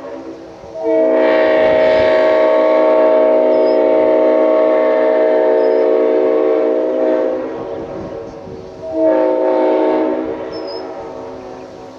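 Leslie RS5T five-chime locomotive air horn, an early Parsippany-built one, sounding its chord in a long blast of about six and a half seconds. A second, shorter blast starts about nine seconds in and trails off.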